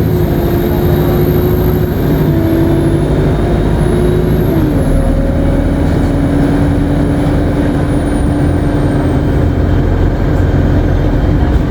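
ADL Enviro 200 MMC bus engine running under way with a high-pitched turbo whine. The whine rises slightly, then glides slowly down and fades out about nine seconds in. The engine note drops about halfway through.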